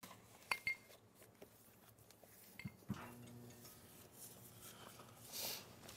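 Quiet room tone with a few small clicks and knocks: two sharp clicks with a short metallic ring about half a second in, more knocks around the middle, and a brief rustle near the end.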